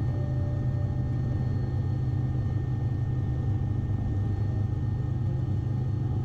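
Bell 407 helicopter in steady cruise flight: a constant low drone from the rotor and Rolls-Royce 250 turboshaft, with a few faint steady whining tones above it.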